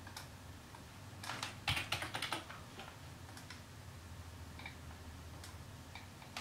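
Typing on a computer keyboard: a quick run of keystrokes about a second in, then a few scattered single clicks.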